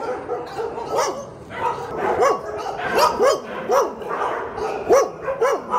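Several dogs barking repeatedly, with short overlapping barks about two a second and some higher yips among them.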